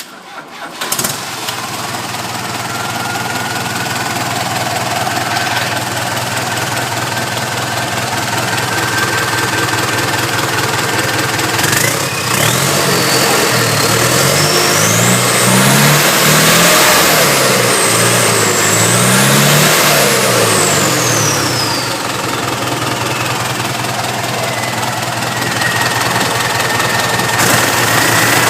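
MWM X10 diesel engine cranking and catching at the very start, then idling steadily. About halfway through it is revved up twice, a high whine climbing and falling with the revs, and it then drops back to idle.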